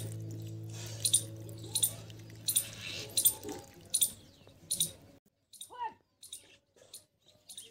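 Water poured from a bucket splashing onto the soil of a potted plant. Under it runs a low steady hum and a high tick about every three-quarters of a second; the hum cuts off about five seconds in.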